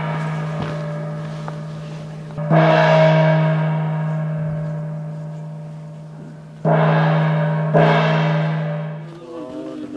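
A large monastery gong struck three times, each stroke ringing out with a deep steady tone and a long slow fade; the last two strokes come about a second apart, and the ringing dies away near the end.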